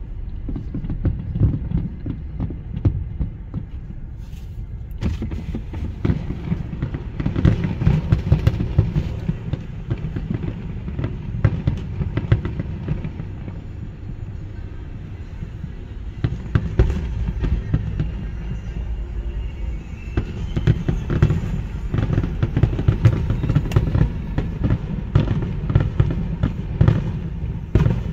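Aerial fireworks display going off: many sharp bangs in quick succession over a steady low rumble, growing busier with more high crackle from about five seconds in.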